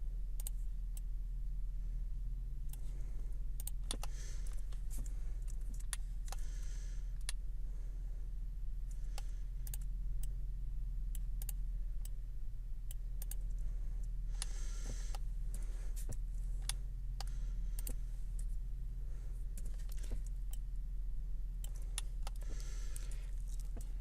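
Scattered computer mouse clicks and keyboard keystrokes over a steady low electrical hum, with a few brief rustles.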